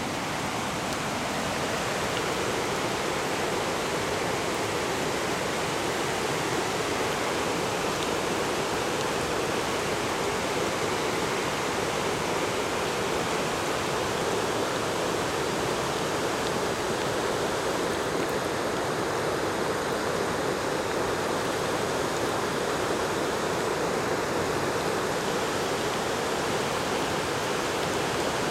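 A flash-flooded creek rushing steadily: a small creek swollen by heavy downpours into a wide, fast torrent of floodwater.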